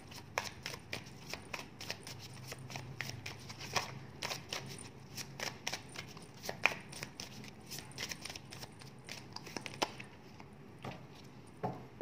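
Oracle cards being handled at the table as three are drawn: an irregular run of light card clicks and rustles, several a second, fewer near the end.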